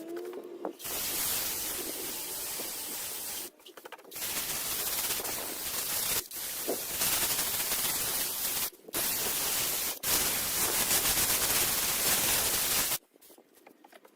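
Power sander grinding old body filler and paint off a car's steel fender, a harsh steady hiss. It cuts out briefly several times and stops near the end.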